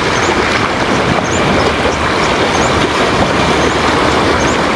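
Loud steady rushing of wind and surf at the water's edge, with a few faint short high chirps recurring through it.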